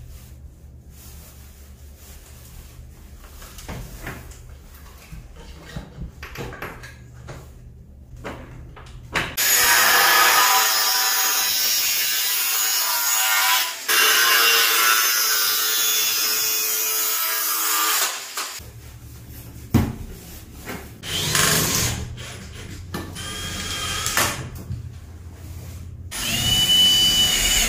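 Angle grinder cutting through a metal tube, running steadily for about eight seconds from roughly a third of the way in, easing briefly partway through. Afterwards a cordless drill runs in several short bursts, the last one near the end with a high whine.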